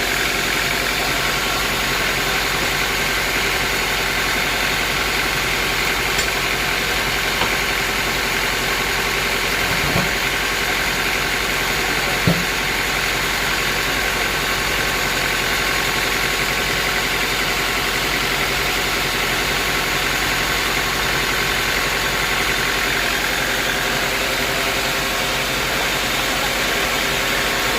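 Bandsaw sawmill machinery running steadily with a constant engine-like hum, with two short knocks about ten and twelve seconds in.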